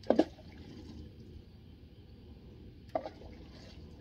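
Two short splashes of water, about three seconds apart, each a quick double hit, over a steady low background rumble.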